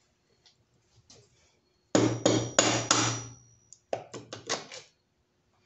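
Hammer-like knocks on the bare Honda D16Y7 engine block at the crankshaft and connecting rods. There are four hard, ringing metal strikes in quick succession, then about five lighter knocks a second or so later.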